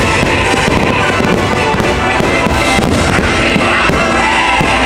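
Fireworks show soundtrack music playing loudly, with fireworks bursting and crackling throughout.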